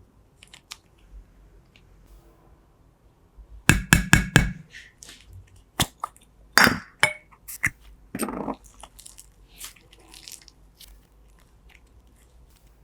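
Slime being handled and squished: a quick run of sharp crackling clicks about four seconds in, then scattered clicks and short sticky squelches.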